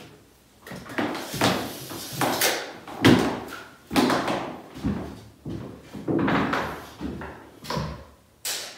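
A run of short knocks and scrapes, about two a second, each dying away quickly, with no steady sound between them.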